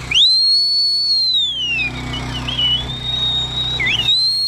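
A high, clear whistle that shoots up sharply, holds, then slides down over about two seconds; it wavers briefly and then rises and falls again near the end.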